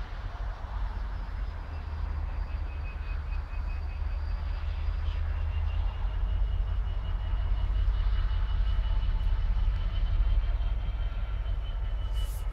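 Wind buffeting the microphone with a heavy fluttering rumble, over faint high whines from a distant approaching train, swelling a little in the second half.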